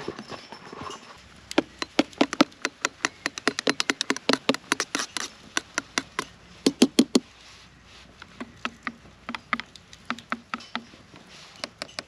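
A metal spoon stirring coffee in a stainless steel camping cup, clinking quickly and repeatedly against the sides for several seconds, then slower, more spaced-out clinks near the end.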